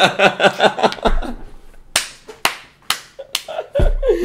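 Two men laughing hard, the laughter coming in quick pulses, with four sharp slaps about two a second midway through.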